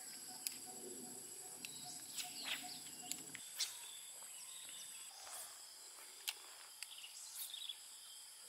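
Steady high-pitched insect drone with scattered short bird chirps.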